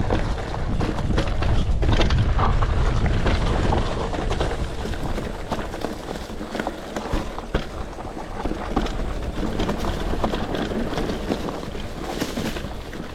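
A mountain e-bike being ridden over rough dirt trail: wind rumble on the microphone, heaviest in the first few seconds, with the tyres and frame rattling through many small knocks over the ground.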